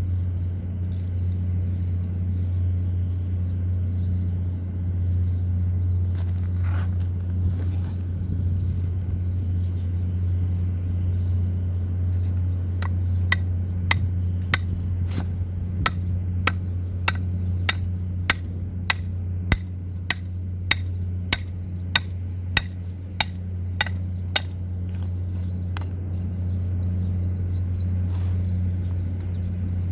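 A steady low hum, with a run of sharp metallic hammer taps on metal, about two a second, starting about twelve seconds in and stopping a few seconds before the end.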